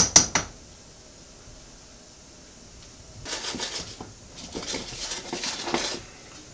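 A fast run of clicks stops about half a second in. From about three seconds in, a saucepan is slid and jostled by its handle on a glass-ceramic electric cooktop, scraping and rattling in two short stretches.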